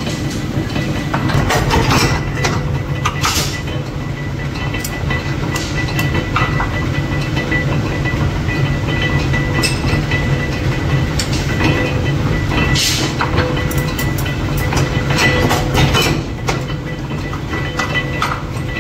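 Mechanical forging press running with a steady low rumble, with irregular metallic clanks as glowing steel bolt blanks are struck in its die.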